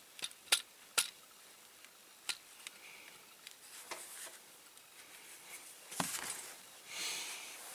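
A few sharp small clicks and taps, the loudest two in the first second, then soft rustling and handling of small parts and tools on a workbench.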